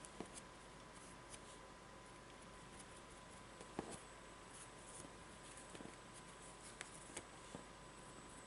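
Near silence with steady hiss, broken by a few faint taps and clicks of a foam sponge brush dabbing paint onto a canvas board and of the board being handled; the sharpest tap comes about four seconds in.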